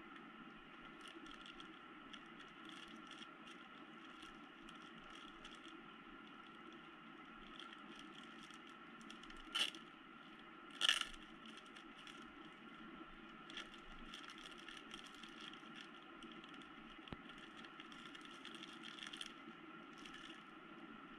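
Clear plastic packaging bag crinkling and rustling as it is handled, with small scattered clicks and crinkles, and two louder crinkles a little over a second apart near the middle.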